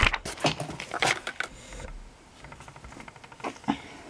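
Hands handling the contents of a mail-order box: a quick run of rustles and clicks in the first second and a half, then quieter, scattered handling noises.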